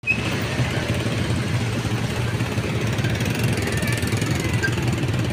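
Vehicle engines idling: a steady low rumble, with a short break at the very start.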